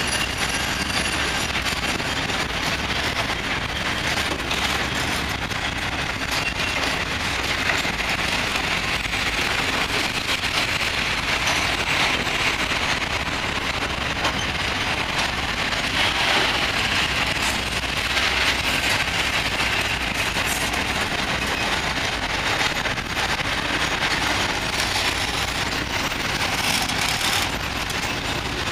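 Freight train of cement hopper wagons rolling past: a steady rolling rumble and rattle of steel wheels on the rails, with faint clicks scattered through it.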